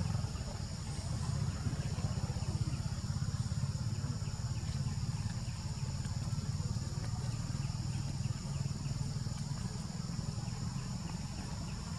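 Steady low rumble, with a faint, even insect drone high above it.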